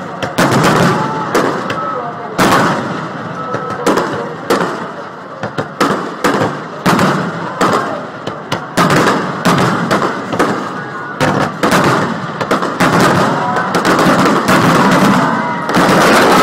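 Aerial fireworks shells bursting in a rapid, irregular string of loud bangs.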